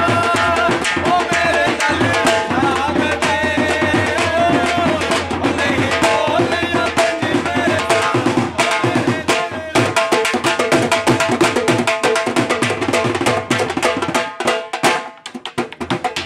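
Two dhols, Punjabi double-headed barrel drums beaten with sticks, playing a fast jhumar dance rhythm. A man sings over them into a microphone for the first half; after that the drums carry on alone, breaking off briefly near the end.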